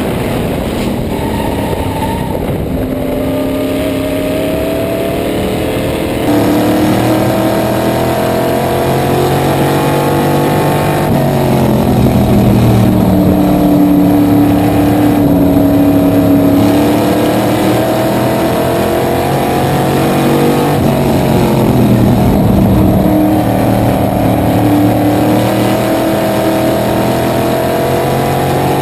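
Small-block V8 of a supermodified race car, heard from its cockpit at racing speed. The engine's pitch climbs and falls back again and again as the throttle is worked. It gets a little louder about six seconds in.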